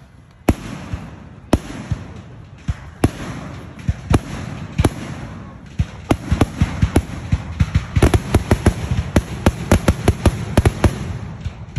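Aerial fireworks firing, with sharp bangs about once a second over a steady hiss. About halfway through they quicken into a rapid run of pops and crackles, several a second, which eases off near the end.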